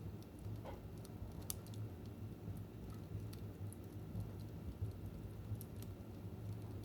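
Wood fire in a fireplace crackling, with scattered irregular pops and snaps over a low steady rumble.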